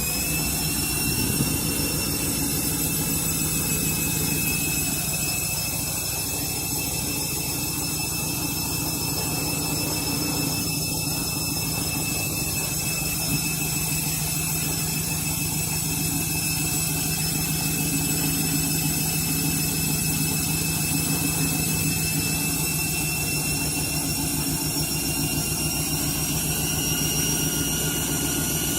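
Washing machine in its final spin at 1200 rpm: the motor's whine levels off at top speed at the start and then holds steady over the rumble of the spinning drum, creeping up slightly in pitch near the end.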